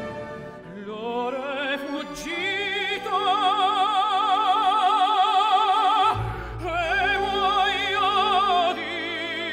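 Operatic solo voice singing long held notes with a wide vibrato over sustained orchestral accompaniment. The voice breaks off briefly about six seconds in, then takes up another long note.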